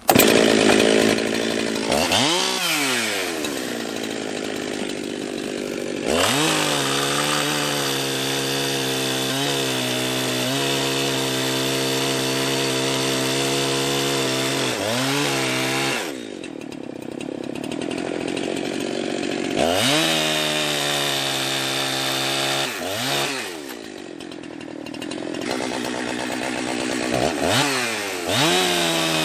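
Freshly refurbished Jonsered 2071 two-stroke chainsaw running at full throttle in wood. The engine note holds steady for long stretches, then drops and sweeps back up several times as the throttle is let off and opened again.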